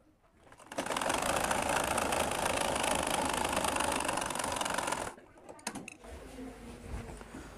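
Singer sewing machine running steadily for about four seconds, stitching the seam that joins two skirt panels, then stopping about five seconds in. Faint cloth handling follows as the fabric is pulled from the machine.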